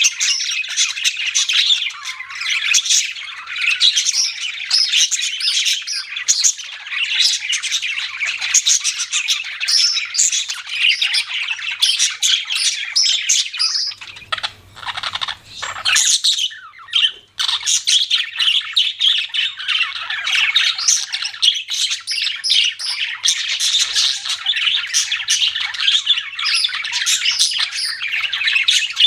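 Budgies (budgerigars) chirping, many overlapping calls at once, with a short lull about halfway through.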